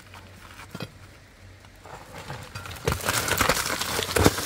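Loose rock and earth breaking away and sliding down a cliff face: a few scattered knocks, then about two seconds in a crackling rush of tumbling rubble builds up and grows loud.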